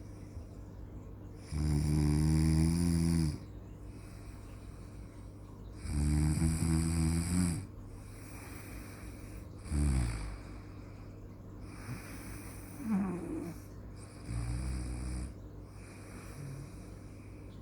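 Snoring: pitched snores come about every three to four seconds. The first two are the longest and loudest, then shorter, weaker ones follow, all over a steady low hum.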